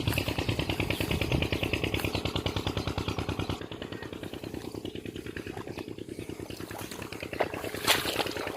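An engine running with a rapid, even chugging beat, dropping in level about three and a half seconds in, with a couple of sharp knocks near the end.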